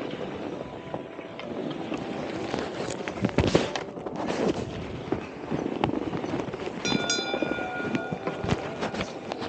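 Skis hissing and scraping over snow, with rough wind and motion noise on the camera. Sharp knocks come about three and a half seconds in as a gloved hand strikes a hanging ball. A brief ringing tone follows near the end.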